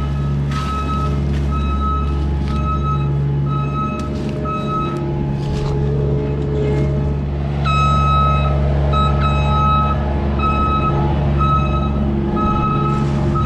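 A backup alarm beeping evenly, about one and a half beeps a second, over a steadily running engine, with a few sharp knocks and clanks in between; the beeping pauses for a couple of seconds in the middle.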